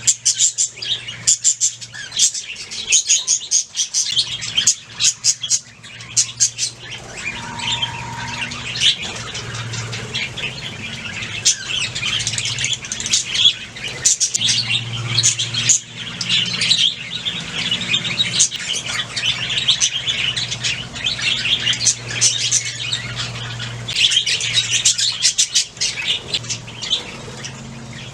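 Several budgerigars chirping and warbling continuously in quick, dense chatter, over a steady low hum.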